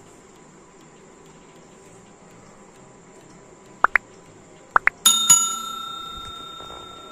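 Subscribe-button animation sound effects: two pairs of short rising pops, then a bell struck twice in quick succession, ringing out and fading over about two seconds.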